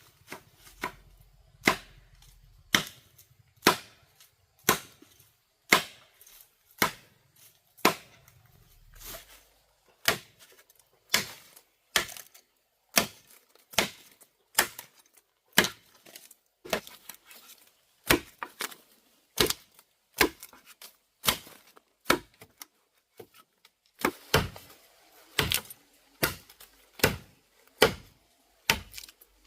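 Bamboo being chopped with a blade: a steady run of sharp, short strokes, roughly one a second, coming a little faster near the end.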